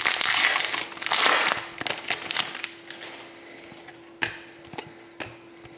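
Panini Select hockey trading cards being handled and flipped through: rustling and sliding of card stock for about two and a half seconds, then a few light taps. A faint steady hum runs underneath.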